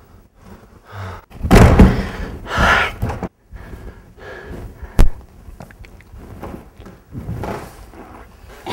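A man's heavy, gasping breaths, loudest in two rough bursts near the start, with one sharp knock against a wooden door about five seconds in.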